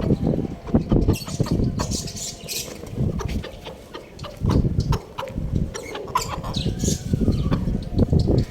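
Chickens clucking and chicks peeping in short high chirps, over loud uneven low rumbling bursts.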